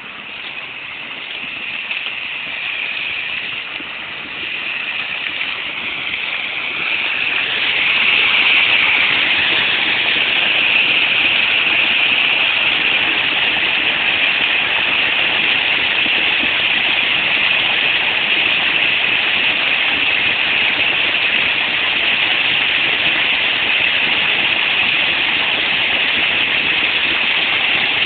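Small woodland stream pouring over a low drop in a cascade, a steady rush of water. It grows louder over the first eight seconds or so, then holds steady.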